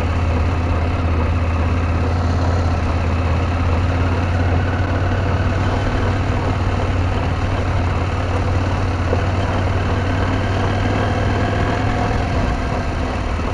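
KTM 790 Adventure parallel-twin motorcycle engine running steadily, with no revving or change in pitch.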